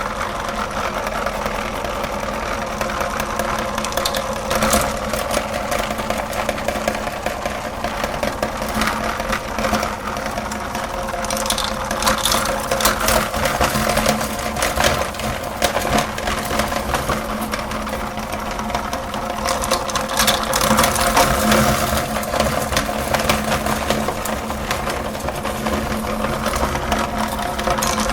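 Electric meat grinder running steadily with a motor hum, with irregular crunching clicks as candy is ground through it.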